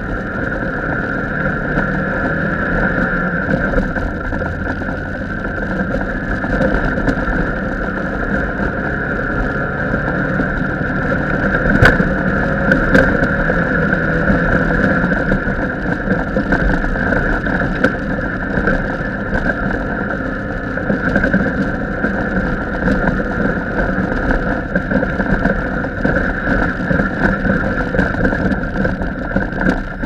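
Off-road race vehicle's engine running steadily under way over a rough dirt course, with one sharp knock a little before halfway.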